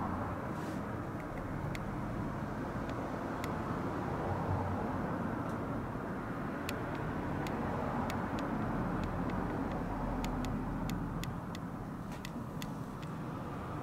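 Steady low background rumble with scattered small sharp clicks, which come more often in the second half.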